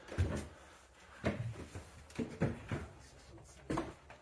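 Footsteps on wooden stair treads as people climb a steep staircase: a series of irregular knocks and creaks, about one every half second to a second.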